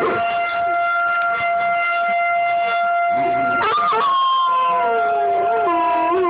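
A fire siren holds a steady, unwavering tone. About halfway through, two dogs start howling along with it, their howls sliding down in pitch and wavering up and down.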